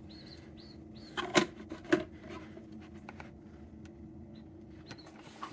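Plastic chick waterer base being screwed onto its jar: a few sharp plastic clicks and knocks about a second in and again about two seconds in, over a steady low hum. Faint high chick peeps in the first second.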